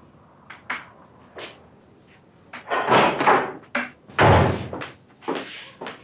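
A door being opened, with bumping and rustling at a hospital bed: a few light clicks, then two loud thudding, rustling bursts about three and about four seconds in.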